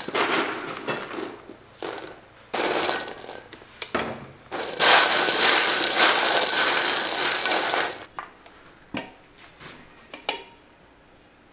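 Dry mini pretzels and puffed corn snack pieces rattling and clattering against a large stainless steel bowl as they are poured and tossed by hand. It comes in short bursts at first, then a steady stretch of tossing of about three seconds, and dies down to a few scattered clicks.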